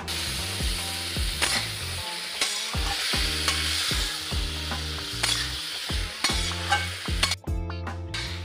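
Boiled jackfruit and potato pieces sizzling in hot oil in a metal pan while a steel spatula stirs them, its edge scraping and clinking against the pan every half-second or so.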